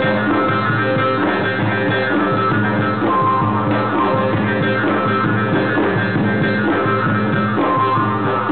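Two Persian dafs, large frame drums, played together in a fast, even rhythm, under steady held tones from another instrument.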